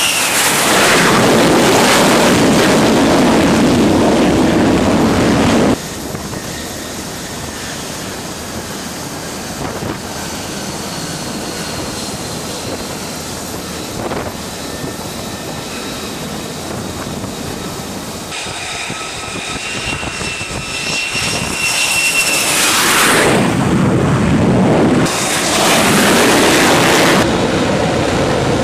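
F-35 Lightning II fighter jets' F135 turbofan engines on a carrier flight deck. A loud jet roar cuts off abruptly about six seconds in, a quieter stretch of engine noise follows, then a whining engine builds into loud roaring twice near the end.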